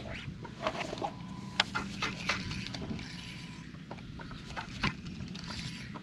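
Scattered light clicks and knocks of fishing tackle being handled aboard a skiff, over a faint steady low rumble.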